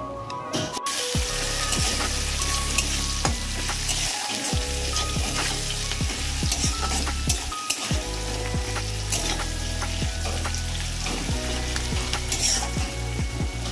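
Sliced onions hit hot oil in a kadai (Indian wok) with a sudden sizzle about a second in. They keep sizzling steadily as a spatula scrapes and stirs them round the pan.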